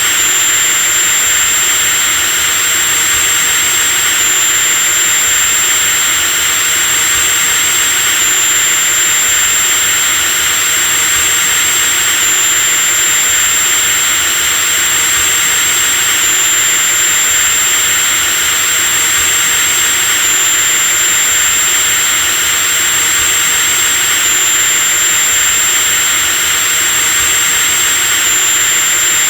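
An electric drill runs continuously at a steady speed: a loud, even mechanical hiss with a high-pitched whine that shifts slightly about every four seconds.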